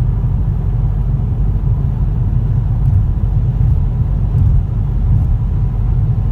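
Steady low road rumble and tyre noise inside the cabin of a 2015 Ford Mustang at freeway speed, which the owner suspects may point to a bad wheel bearing.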